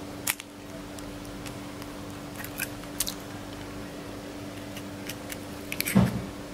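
An egg being cracked into a glass mixing bowl of pakora batter: a few faint sharp clicks and taps of the shell. A steady low hum runs underneath, and there is a louder knock about six seconds in.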